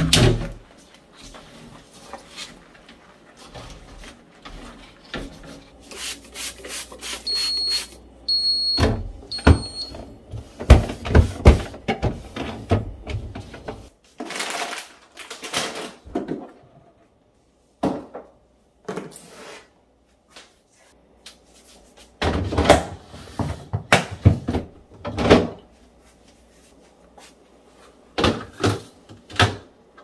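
Household handling noises: plastic food storage boxes and refrigerator shelves being lifted, knocked and set down in a series of clatters. Three short high beeps sound about eight to ten seconds in.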